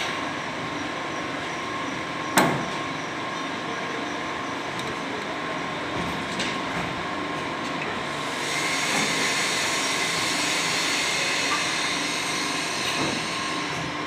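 Clay brick extrusion and cutting machinery with a chain conveyor running steadily, with a sharp knock about two and a half seconds in. A louder, hissier noise joins about eight seconds in and carries on.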